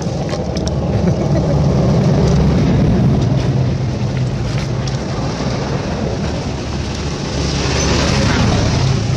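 Steady low drone of an engine running nearby, like a motor vehicle, with a hissing swell about eight seconds in.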